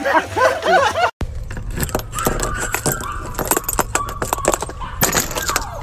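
A dog moving at a door, its collar tags jingling amid rapid sharp clicks and scratches, with a thin high whine in the middle.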